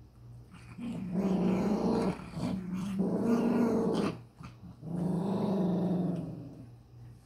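Maltese dog growling in three long, drawn-out growls with short breaks between them, over food while waiting to be hand-fed boiled chicken.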